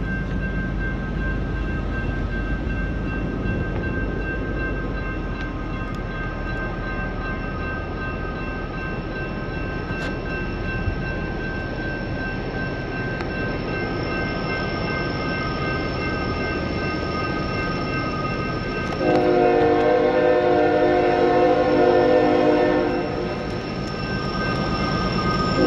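Grade-crossing signal bell ringing steadily, then the air horn of an approaching CSX locomotive sounds one long chord for about four seconds, and a second blast begins at the very end.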